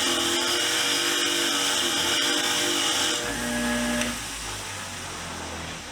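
Motor-driven wire wheel running and scrubbing rust off a steel wrench with a loud steady hiss. About three seconds in the scrubbing stops and the motor hum fades as the wheel winds down.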